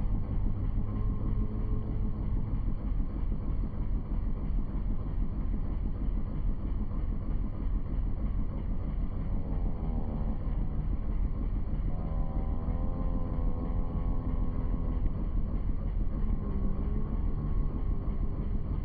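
Boat motor running steadily, with wind rumbling on the microphone.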